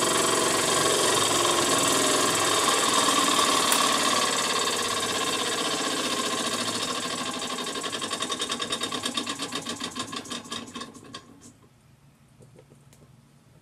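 Wilesco D4 toy steam engine running fast with a dense whir, then slowing down: its strokes turn into separate beats that spread further and further apart until it stops about three-quarters of the way through.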